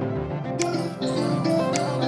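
Background music: held melodic notes over a light percussive beat that strikes about once a second.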